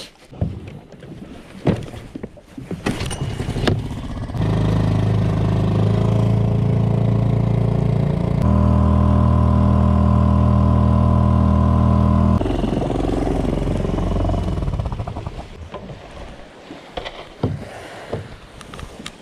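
A small boat's outboard motor runs at a steady speed, then steps up to a higher, louder speed about halfway through. It then eases off and fades out a few seconds before the end. Scattered knocks of handling come before and after it.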